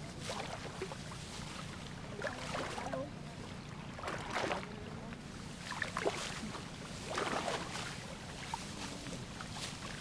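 Water sloshing and splashing as legs wade through a flooded rice paddy during hand harvesting, in swishes every second or two.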